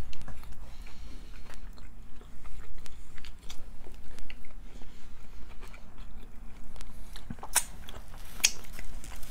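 People chewing and biting into soft Subway sandwiches, close up. There are many small mouth clicks throughout, and two sharper ones near the end.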